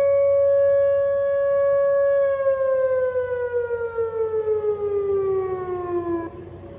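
Outdoor tornado warning siren sounding a steady tone, then winding down from about two seconds in, its pitch falling steadily before it drops much quieter near the end.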